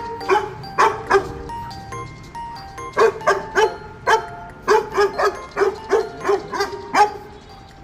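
Corgi barking repeatedly in quick runs of short sharp barks, with a pause of about a second and a half before the longest run, over light background music.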